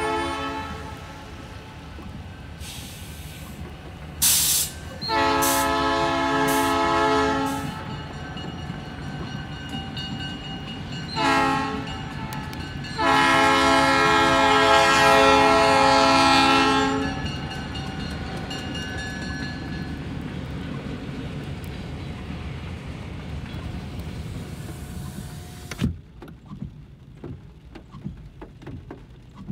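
Freight train locomotive's multi-chime air horn sounding the grade-crossing warning: the end of one long blast, then a long, a short and a long blast. Under it runs the steady low rumble of the passing train. A loud sharp noise comes about four seconds in, and the sound drops off abruptly near the end.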